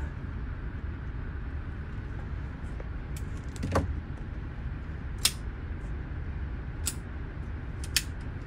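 About six sharp cracks and clicks at irregular intervals, the one about four seconds in the heaviest, over a steady low rumble: gunfire and gun handling in an indoor shooting range.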